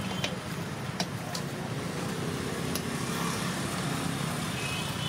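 Steady roadside traffic noise with a motor vehicle's engine running, and a few light clinks of serving spoons on steel pots and plates.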